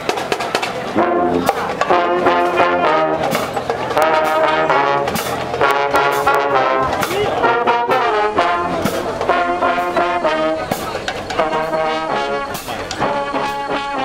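Background music: a brass melody in repeating phrases over percussion.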